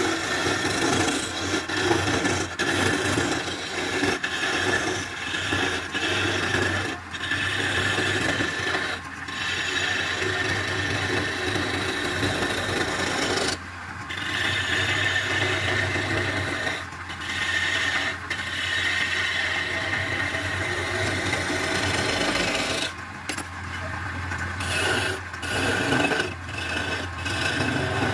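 Wood lathe running with a steady low motor hum while a flat steel chisel scrapes and cuts the spinning wooden blank, giving a continuous rasping that drops away briefly a few times.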